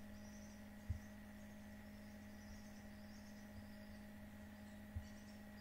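Quiet room tone: a steady low electrical hum with a faint, repeated high chirping. Two soft low thumps come about a second in and near the end.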